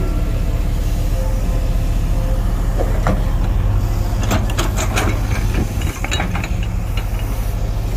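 JCB 140 tracked excavator's diesel engine running steadily under load, with a cluster of sharp cracks and knocks from about three to six and a half seconds in as the bucket tears at a tree stump and its roots.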